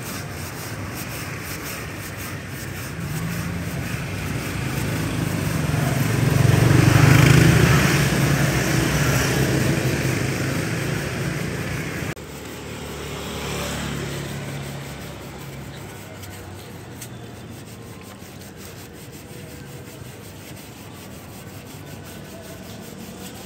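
A passing road vehicle swells to a peak and fades, the loudest sound, then drops away suddenly about halfway through. Underneath is the scraping of a hand sanding block rubbed over body filler on a car's steel panel.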